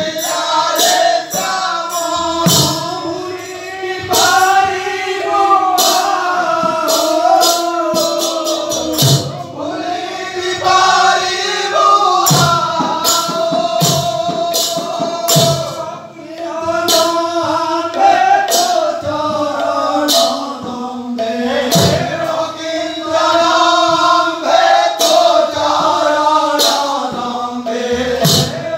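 Odia bhajan: men singing a devotional song together, accompanied by a khol, a two-headed clay barrel drum, struck by hand in a driving rhythm.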